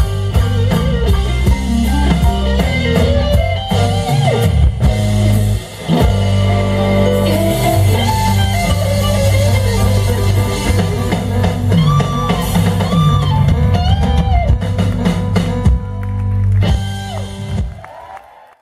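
Live blues band playing: electric guitar lead lines over bass guitar and drum kit. The music dies away near the end.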